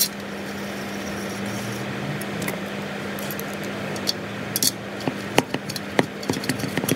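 Light metallic clicks and clinks of small screws and a steel T-handle Allen key being handled and set into an aluminium engine casing. They are sparse at first and come more often in the second half.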